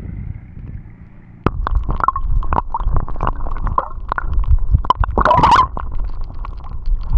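Water sloshing and gurgling close to the microphone, with irregular knocks and handling noise, and a louder splash-like burst about five seconds in.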